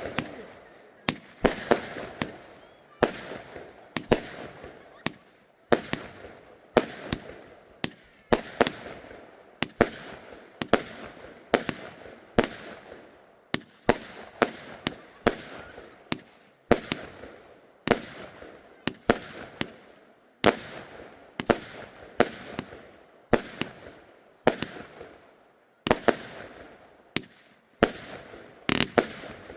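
Lesli "Creepy Gryphon" compound firework cake firing shot after shot: a sharp bang about once or twice a second, each with a fading tail.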